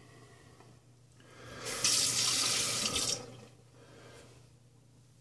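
Bathroom sink tap turned on, water running into the basin for about a second and a half, then shut off.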